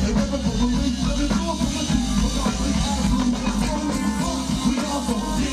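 Hip hop music played live over a loud PA, with a strong, steady bass line.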